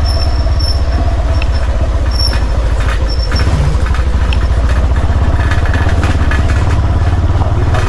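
Motor vehicle engine running steadily, a loud low rumble with a fast even pulse, with a few faint high chirps over it.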